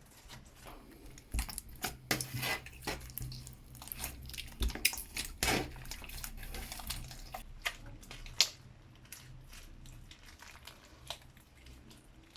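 Clear slime being stirred in a bowl: irregular sticky clicks and squelches with clinks of the utensil against the bowl, busiest in the first half and with one sharp loud click past the middle.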